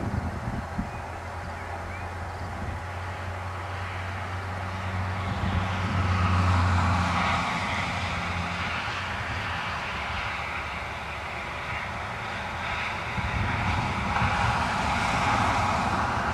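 Passing motor traffic: a low engine drone with tyre noise that swells about six seconds in and again near the end.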